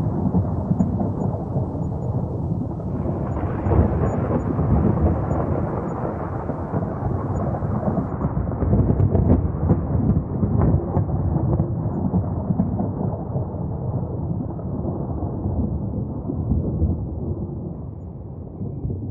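Thunder rumbling low and long in one continuous roll, easing off near the end.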